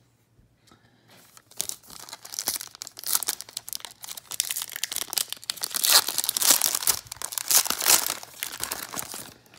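Foil wrapper of a 2017 Playoff football card pack crinkling and tearing as it is ripped open by hand. It starts after a short pause, the crackle builds, and it is loudest about two thirds of the way through.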